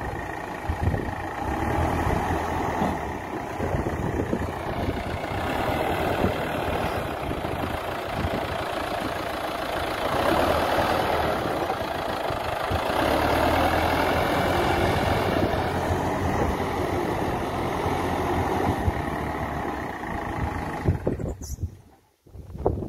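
Diesel engines of backhoe loaders running under load, the engine note rising and easing as a front loader bucket is worked. The sound cuts off suddenly near the end.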